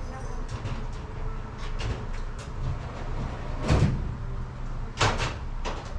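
Metal clunks and knocks from the doors and locks of a cluster mailbox unit being worked on, over a low steady rumble. The two loudest knocks come a little past halfway and about a second before the end.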